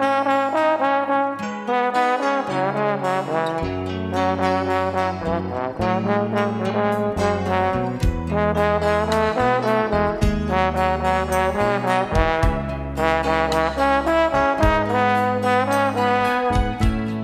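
Pop music: a held, pitched lead melody over a moving bass line and a steady beat.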